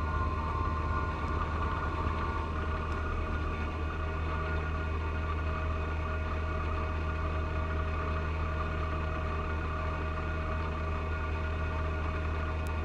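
John Deere 1025R compact tractor's three-cylinder diesel running steadily, driving its 54-inch front snow blower through wet snow. A higher whine over the low drone eases off after about two seconds.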